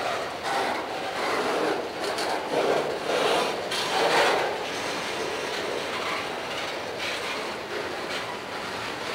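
Freight cars, bulkhead flatcars loaded with lumber and boxcars, rolling past close by on steel wheels: a steady rumble and rattle with irregular clacks of the wheels, louder from about two to four seconds in.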